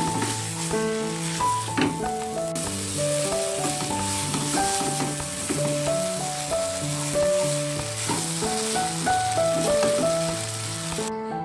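Food sizzling in hot oil in a pan as it is stir-fried, a steady hiss that cuts off suddenly near the end, over background music.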